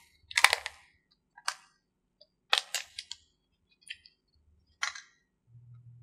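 Thin plastic wrapping being pulled off a new smartphone, crinkling in a series of short, sharp crackles roughly one a second.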